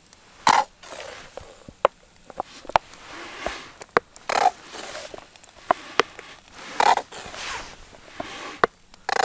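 Irregular scraping and crunching, with sharp clicks and knocks in between.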